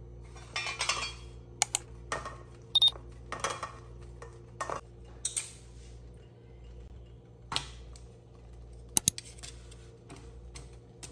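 Sparse kitchen handling sounds from cheese and a metal grater, then tortillas and metal tongs in a nonstick frying pan: short scrapes, taps and knocks, with one ringing metal clink about three seconds in, over a steady low hum.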